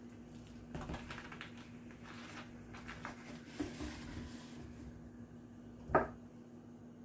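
Faint clicks and rustles of a drink bottle and cup being handled, with one sharper, louder sound about six seconds in.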